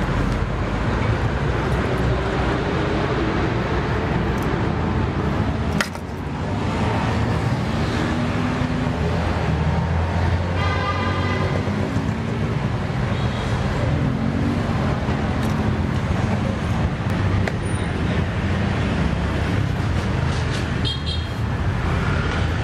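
Busy street ambience: steady traffic noise with a low engine rumble, and a short horn-like toot about halfway through.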